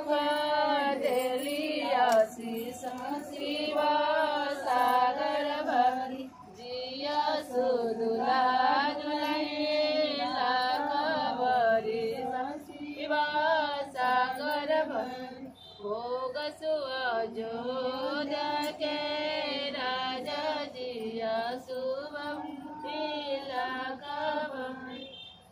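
Women singing a traditional North Indian wedding folk song together in long drawn-out phrases with short breaks, the singing stopping just at the end.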